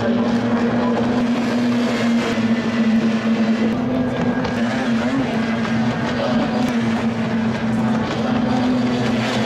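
Racing hydroplanes' two-stroke outboard motors running flat out as the boats race past, a steady droning engine note.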